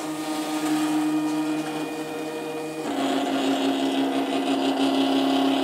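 Silhouette electronic cutting machine running its cut job: the stepper motors whine steadily as the blade carriage travels and the cutting mat is fed through the rollers, the whine dropping to a lower pitch about three seconds in.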